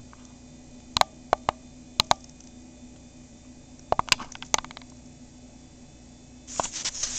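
A few sharp clicks in two small clusters, about a second in and about four seconds in, over a faint steady hum; near the end, paper rustling as a page of a paper booklet is turned.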